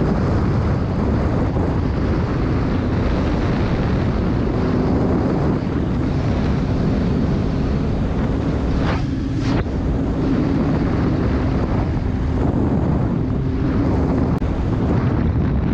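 Motorcycle cruising at steady speed, its engine a steady drone under heavy wind noise buffeting the microphone.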